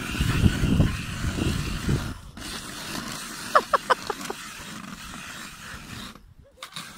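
Hand-cranked ice auger grinding into ice, loudest and roughest in the first two seconds, then a softer scraping as the crank keeps turning. About halfway through there is a quick run of four short high-pitched sounds.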